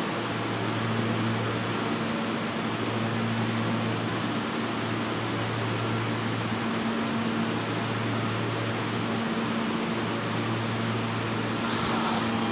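Stationary Kawasaki R160B subway train idling: a steady hum of its air-conditioning and auxiliary equipment, with a low drone that drops out briefly every couple of seconds. About a second before the end a sudden hiss starts, the brakes releasing as the train gets ready to pull out.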